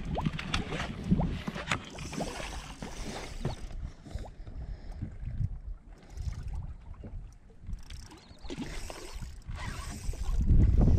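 Scattered light knocks and clicks of handling on a fishing boat, with quieter stretches between. About ten seconds in, wind starts buffeting the microphone.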